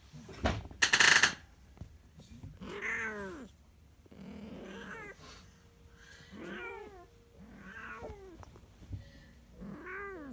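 Burmese kitten mewing: five high, thin meows, each rising then falling in pitch, one every second and a half or two. A brief loud rustle about a second in.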